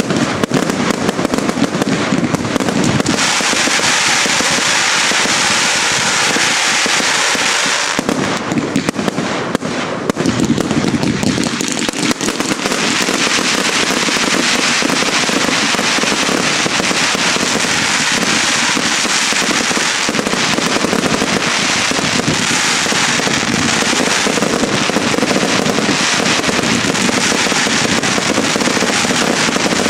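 Consumer New Year's fireworks batteries firing at full pace: a dense, unbroken run of launches, bursts and crackling, with a steady hiss from about 3 to 8 seconds in.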